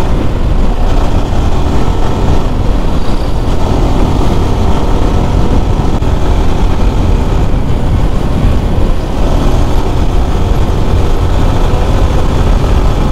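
Yamaha R15 motorcycle's single-cylinder engine running steadily while riding at speed, under steady wind rush on the helmet microphone.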